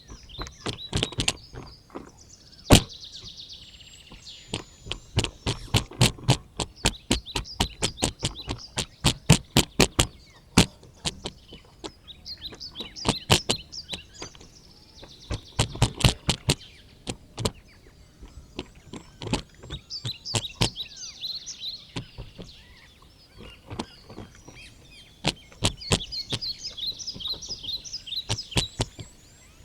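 Quick runs of sharp knocks or taps, several a second, with birds chirping in the background.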